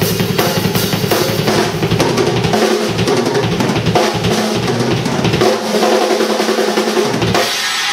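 An acoustic drum kit played fast and hard: dense snare, tom and bass drum hits under cymbals, with the kick dropping out for short moments a few times.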